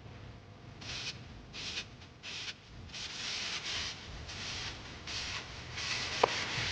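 Repeated scraping strokes, about one or two a second, coming faster and nearly continuous after about three seconds, with one short squeak near the end.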